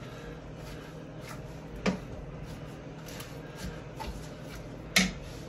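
A spoon stirring soup in the Instant Pot's inner pot, knocking against the pot now and then, with the two loudest knocks about two seconds and five seconds in. A low steady hum runs underneath.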